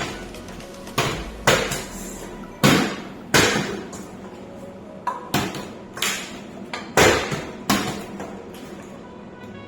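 A series of sharp knocks, about ten at irregular intervals, each with a short ringing tail.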